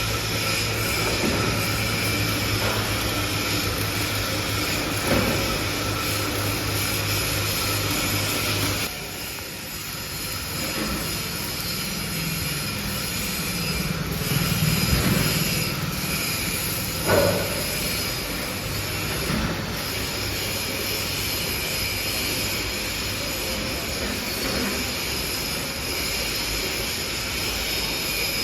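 Industrial forging-press machinery running: a steady motor hum with constant whining tones, dipping about a third of the way in and swelling into a low rumble, with a sharp metallic clank a little past halfway and a few lighter knocks.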